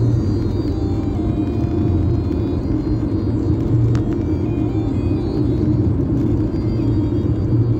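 Steady low road and engine rumble heard inside the cabin of a car driving at highway speed, with a single light click about four seconds in.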